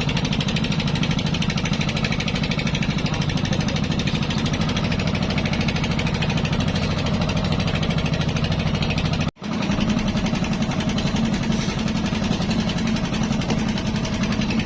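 Engine on a basnig fishing boat running steadily with a fast, even chugging pulse; the sound drops out for an instant about nine seconds in and carries on.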